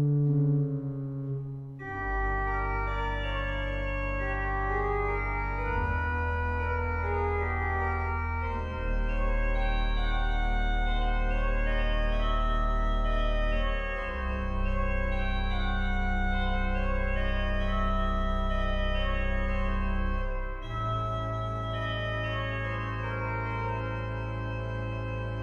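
1997 Kreisz pipe organ playing: deep pedal notes that change every few seconds under a moving upper line of many short notes, with a new chord coming in about two seconds in.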